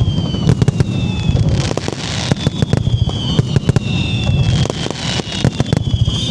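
Aerial fireworks display going off: a dense run of overlapping bangs and crackles, with several high whistles falling slowly in pitch and two bursts of hissing crackle about two and five seconds in.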